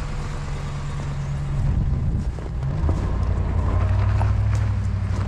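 Car engine running with road noise; its low note shifts about two to three seconds in, then holds steady.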